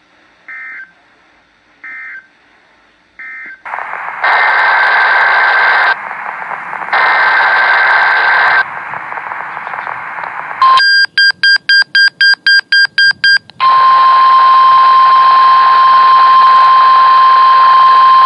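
Three faint short beeps, then NOAA Weather Radio static carrying two harsh, buzzing SAME data bursts: the digital header that opens an Emergency Alert System Required Weekly Test. A burst of about eight rapid beeps follows, then the steady 1050 Hz weather radio warning alarm tone from about 14 seconds in.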